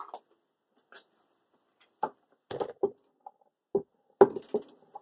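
Knocks and clunks of a lapidary machine's motor being lifted and handled by its base. Quiet for the first two seconds, then a run of short knocks, the loudest just past four seconds in.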